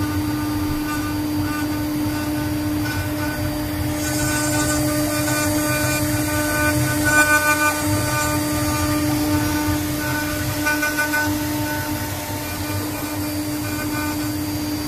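4-axis CNC router's spindle running with a steady high whine while a fine engraving bit carves a pattern into a wooden workpiece turning on the rotary axis. The hiss of the cut grows louder for several seconds in the middle.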